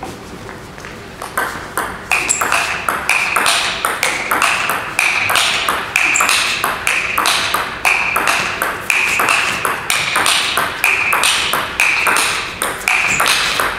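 Table tennis ball being hit back and forth in a long, fast rally: bat strikes alternating with bounces on the table, several clicks a second, many with a short ringing ping. The rally picks up about a second in.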